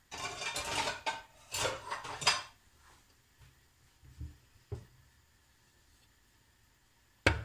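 Kitchen clatter of pots, dishes and metal utensils being handled: a burst of clinking and scraping over the first couple of seconds, a couple of light knocks around four seconds in, and one sharp knock near the end, the loudest of all.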